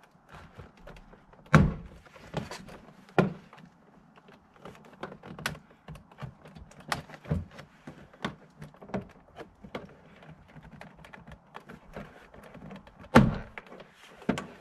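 Plastic push-in clips of a 2017 Toyota 4Runner's front door trim panel popping out as the panel is pried off the door: an irregular string of sharp snaps and thunks, the loudest about a second and a half in and again near the end, with lighter plastic clicks and rattles between.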